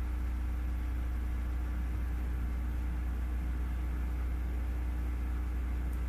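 Steady low hum with an even hiss of background noise. Nothing starts, stops or changes.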